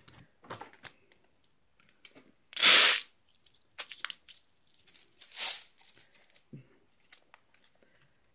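Pin art toy being tilted and pushed: its many plastic pins slide through the frame in two short rushes, about three and five and a half seconds in, with small clicks of the pins in between.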